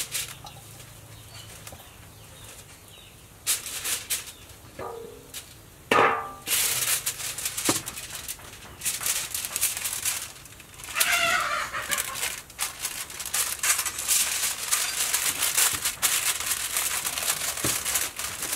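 Aluminium foil crinkling and rustling as a sheet is pulled from the roll and folded around a fish, mostly from about a third of the way in. A chicken clucks a couple of times in the background.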